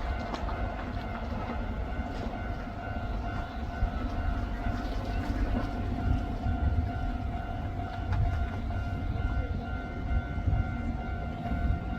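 Keio Line electric train running past the level crossing, a low rumble of wheels on rail with a few sharp clicks. Over it the level-crossing warning bell rings with a steady high tone.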